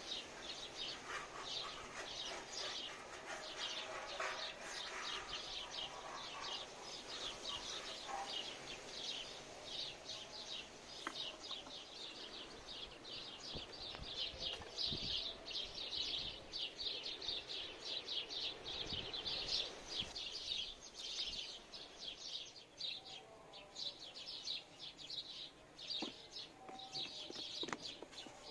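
Small birds chirping in a continuous, rapid chatter of many short chirps.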